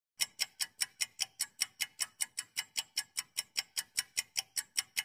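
Countdown-timer ticking sound effect: fast, even clock-like ticks about five a second, stopping abruptly at the end.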